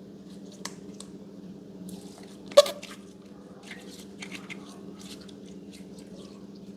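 Slime being squished and pressed by hand: soft, wet clicks and crackles, with one sharp, loud pop about two and a half seconds in.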